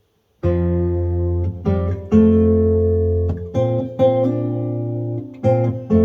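Acoustic guitar playing an instrumental intro: chords strummed one after another and left to ring, starting just under half a second in.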